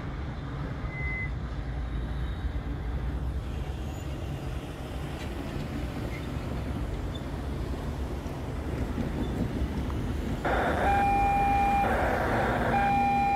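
Freight cars rolling along the track with a steady low rumble. Near the end come two loud, steady horn-like tones of about a second each, over a rush of noise.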